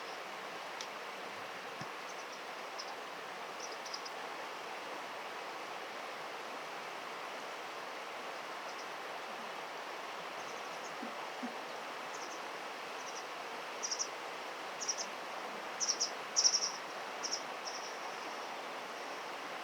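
Steady rush of river water, with a scatter of short, high chirps that come thicker and louder near the end.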